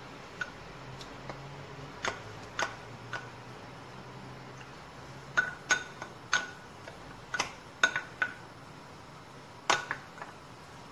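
A spatula clinking and scraping against a small ceramic bowl as tomato paste is knocked out of it into the wok: about a dozen irregular clinks, each with a short ring, most of them in the second half. A faint steady hum runs underneath.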